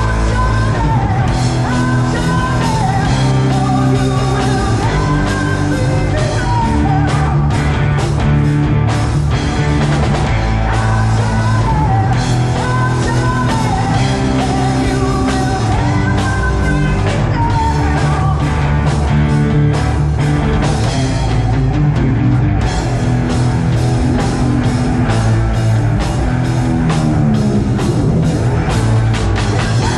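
Rock band playing loud and live: drums, bass and electric guitar, with a singer.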